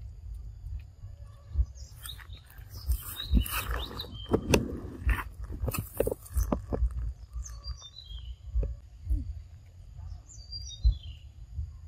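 Forest ambience: birds give short falling chirps about two-thirds of the way through and again near the end, over a faint steady high insect drone. In the middle there is a stretch of rustling and low bumps from the camera being handled and swung around.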